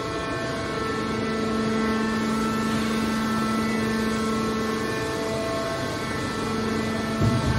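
Hydraulic scrap-metal baler's power unit running with a steady hum made of several held pitches. A short low thump comes near the end.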